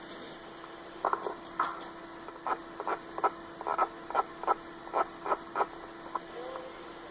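CB radio receiver: a steady hum with a quick, irregular string of short chirps and pops starting about a second in and dying out about four seconds later.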